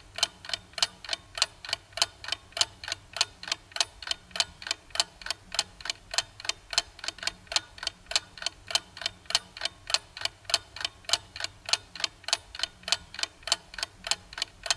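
Ticking clock sound effect, an even run of sharp ticks about three a second, marking the time given to answer a multiple-choice question.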